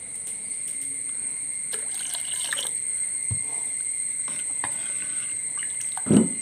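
Water being poured and trickling into a clay pot of freshly ground spice paste, with a few small clinks. A single dull knock near the end comes as the metal ladle is worked in the pot.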